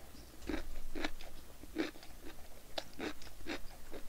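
A person chewing a mouthful of food close to a microphone, with irregular mouth clicks about two or three a second.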